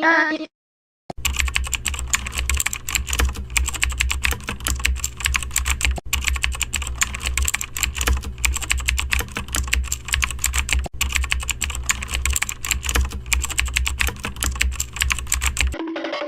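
Rapid, continuous typing on a computer keyboard: dense clicking that starts about a second in, pauses for an instant twice, and stops just before the end.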